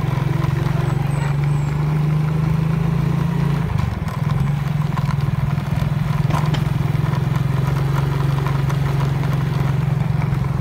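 Small motorcycle engine running steadily under way, heard from the rider's seat; its note dips and wavers briefly about four seconds in, then steadies again.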